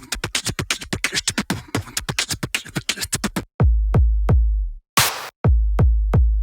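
Electronic background music with drum-machine beats: a fast run of clicking hits, then from about halfway heavy deep bass drum hits broken by short silent gaps.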